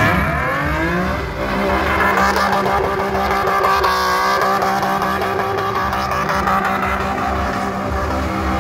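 Car engine revving up over the first second or so, then held at steady high revs while the car spins donuts on wet pavement.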